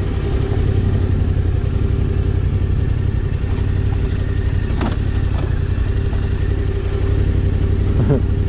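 Yamaha Ténéré 700's parallel-twin engine running steadily at low revs as the bike rolls slowly down a rutted dirt track, with a couple of brief knocks and clatters from the bike over the bumps, about five and eight seconds in.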